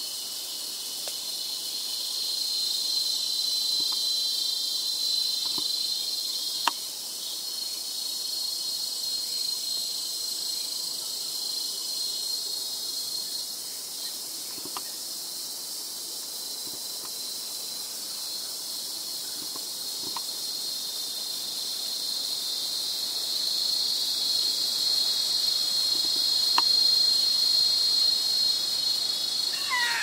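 Insect chorus: a steady high-pitched drone that swells louder twice, the second time toward the end, with a sharp click about seven seconds in.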